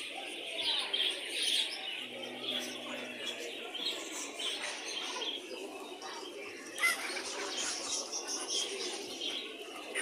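Many caged birds calling at once: a dense, continuous chatter of small-bird chirping, with pigeons cooing underneath. A brief louder knock about seven seconds in.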